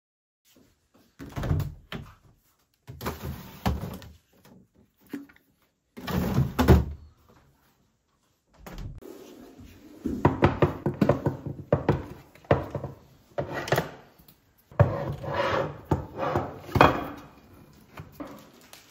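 Plastic food container with a frozen block of ice inside being knocked and worked against a kitchen sink to free the ice: bursts of thunks and clattering knocks, a few seconds apart.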